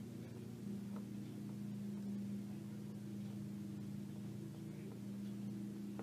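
Steady low hum with a faint tick about a second in, in an otherwise quiet room.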